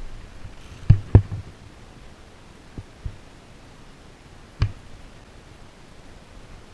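A few sharp knocks against a quiet background: two loud ones close together about a second in, two fainter ones near three seconds, and one more near four and a half seconds.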